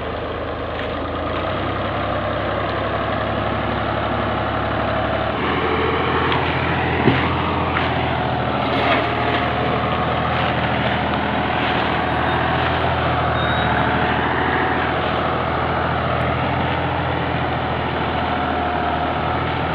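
Fiat 480 tractor's three-cylinder diesel engine running steadily under heavy load, hauling a fully loaded sugarcane trolley. Its note shifts and grows a little louder about five seconds in.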